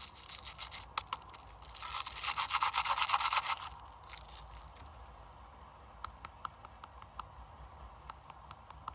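Snack packaging being handled and unwrapped: dense crinkling, rubbing and scraping for the first three and a half seconds or so, then scattered light clicks and taps.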